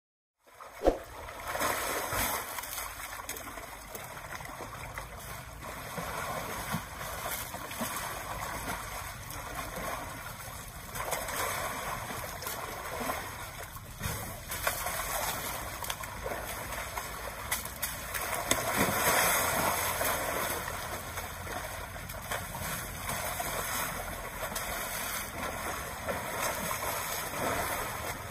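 Asian elephants wallowing in a pool of wet mud: continuous sloshing and splattering of mud and muddy water that swells and fades as they move, with a sharp knock about a second in.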